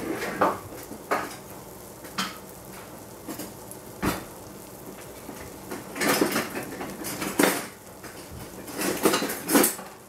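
Metal utensils and cookware clinking and knocking against each other in irregular clatters, busier about six seconds in and again near the end.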